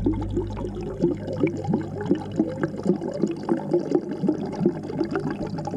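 Aquarium water bubbling and gurgling, heard with the microphone underwater in the tank: an irregular run of short bubbly pops, several a second, over a low hum that fades out about a second in.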